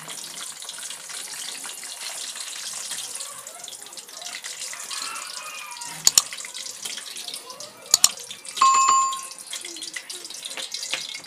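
Potato chips frying in hot oil in a wok, a steady sizzle. About six seconds in, and again at eight, a quick double click; then a short bell ding, louder than the frying: a subscribe-button sound effect.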